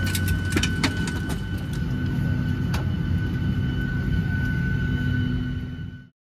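Boeing 737-800 cabin noise on the ground: a steady hum with a thin high whine, and scattered clicks and knocks from passengers moving about in the aisle. It cuts off suddenly near the end.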